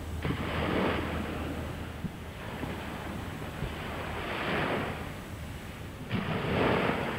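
Sea waves washing in, three swelling rushes of surf, over a steady low hum of boat engines.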